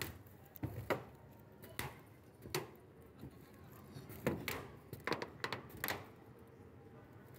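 Footsteps on corrugated metal roofing sheets: a series of irregular sharp knocks, coming faster a little past the middle.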